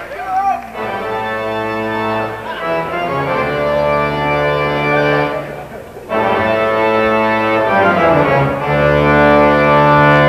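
Robert Morton theatre pipe organ playing slow held chords that change every second or two. The sound fades briefly about five and a half seconds in, then comes back in full and louder for the rest.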